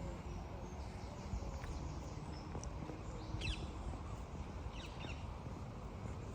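Two short bird calls, about three and a half and five seconds in, over steady outdoor background noise.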